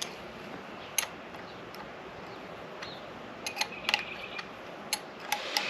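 Scattered light metallic clicks and ticks from hand tools and the clutch lever's clamp as it is positioned and snugged onto a motorcycle handlebar, a few clicks about a second in and a quick cluster past the middle and near the end.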